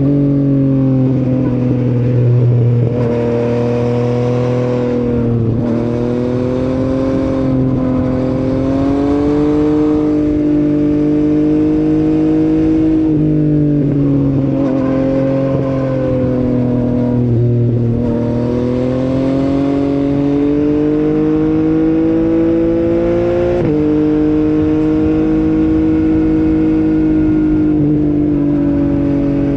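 Motorcycle engine running under way, heard from a microphone mounted on the bike. Its pitch climbs slowly and steps down sharply three times, then steps up once, as the rider changes gear.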